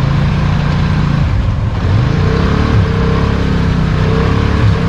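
Can-Am XMR 850 four-wheeler engine running loud through a slip-on exhaust. The note holds steady at first, then drops and rises several times as the throttle is worked.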